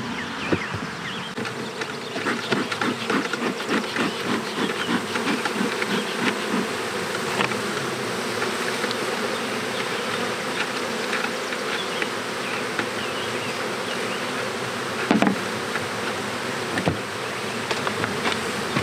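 Honeybees from an opened nucleus colony buzzing steadily, with many brief louder buzzes as single bees pass close. Two sharp knocks come about 15 and 17 seconds in.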